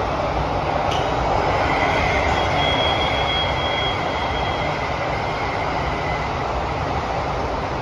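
Inside a Kawasaki–CRRC Sifang CT251 metro train running through a tunnel: steady rumble and rushing noise. A high-pitched wheel squeal starts about a second and a half in, holds for about five seconds and fades, with a higher squealing tone joining briefly in the middle. A single short click comes about a second in.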